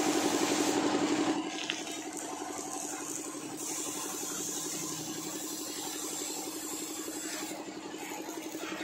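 Compressed-air paint spray gun hissing as primer is sprayed onto steel trusses, loudest for the first second and a half, over the steady pulsing hum of the air compressor feeding it.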